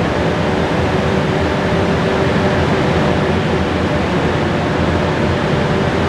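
Steady, loud industrial noise inside a working steelmaking plant: a constant machinery hum with a few steady low tones running through it.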